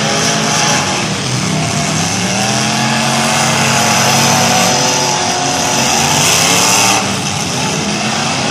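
Engines of several old full-size race cars running hard on a dirt figure-8 track, revving and easing off through the turns, several pitches overlapping and rising and falling. The noise swells near the end, then drops off a little.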